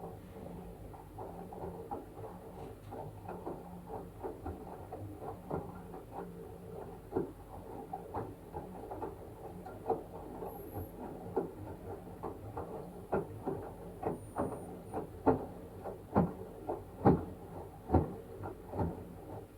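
LG washing machine running with a blanket inside: a steady low hum under irregular clicks and knocks. The knocks grow louder and more frequent over the last few seconds.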